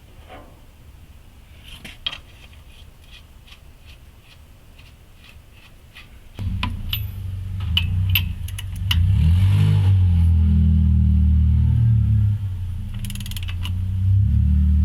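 Engine of a 1963 Chevy C30 truck coming to life about six seconds in, after some light clicks, and running with a deep, loud low rumble that swings up and down in pitch as it is revved.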